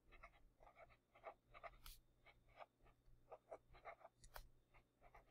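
A felt-tip marker writing on paper: a quick series of short, faint scratching strokes.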